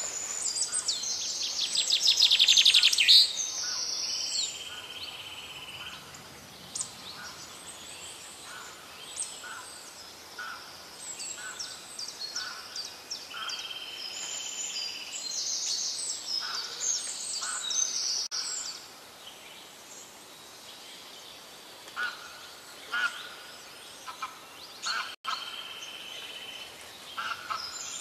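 Songbirds singing: many short chirps and high trills, the loudest a rapid trill about two seconds in, with the same phrases coming back about every eleven seconds.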